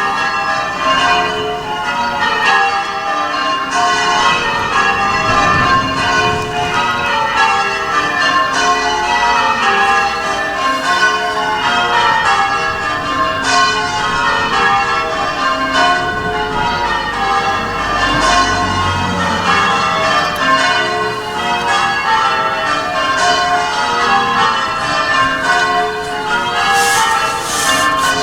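Church bells rung full-circle in English change ringing: a continuous, even stream of strokes, the bells sounding one after another in quick succession and overlapping as each rings on.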